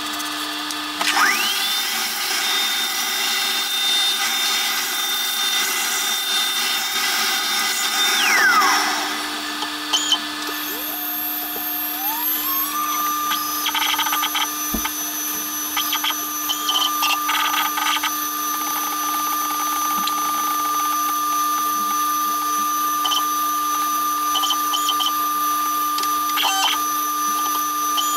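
Small CNC router running: a high motor whine rises about a second in, holds, and falls away near the middle, then a lower whine rises and holds, over a steady hum with scattered clicks.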